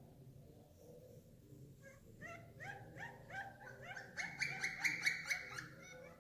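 An animal calling in a rapid series of short, downward-sliding notes. The calls begin about two seconds in, come faster and louder, and break off near the end, over a low steady hum.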